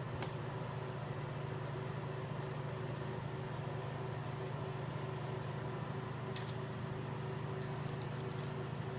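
Steady mechanical hum made of several fixed tones, like a kitchen appliance's fan running, with one short light click about six seconds in.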